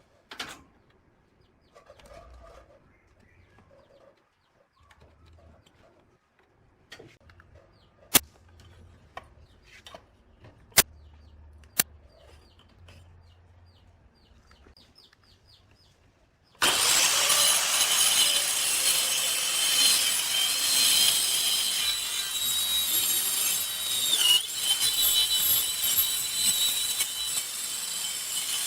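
Quiet handling with three sharp knocks. Then, a bit over halfway through, an angle grinder starts abruptly and runs loud and steady with a high whine, working wood.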